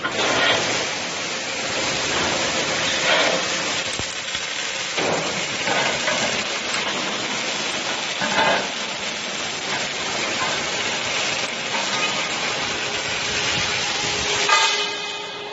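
Steady crackling hiss of welding arcs on a double-torch scaffolding-tube seam welding machine, with a few brief metal knocks.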